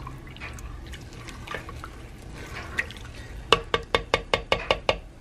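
Black plastic slotted spoon stirring thick sauce in a slow cooker's crock, with soft wet sloshing and a few scattered clicks. About three and a half seconds in comes a quick run of about ten sharp clacks, some six a second, as the spoon knocks against the crock.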